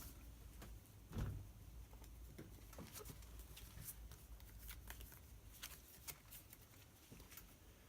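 Faint handling of trading cards: soft slides and light taps, with one slightly louder soft knock about a second in.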